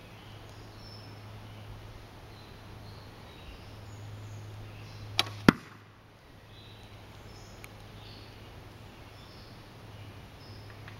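One shot from a cherry-and-hickory English longbow of 52 lb draw. A sharp crack of the string's release comes about halfway through, then a louder crack about a third of a second later as the heavy bodkin-point arrow strikes the chain mail target.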